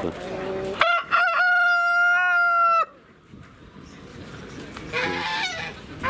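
A rooster crowing once: two short notes, then one long held note of about a second and a half that cuts off sharply.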